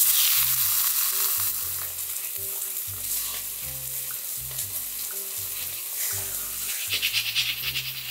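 Raw pork slices sizzling in hot oil in a stainless steel pan, starting suddenly as the meat goes in and settling into a steady frying hiss, with more crackling and popping in the last second or so.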